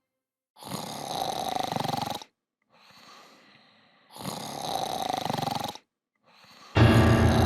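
Cartoon snoring sound effect: two long snores with a fainter breath between them. Near the end a loud, rough, buzzing sound starts suddenly.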